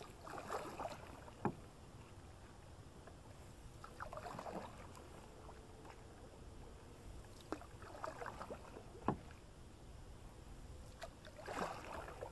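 Canoe paddle strokes: the paddle swishing and splashing through calm water about every four seconds, with a few sharp knocks in between.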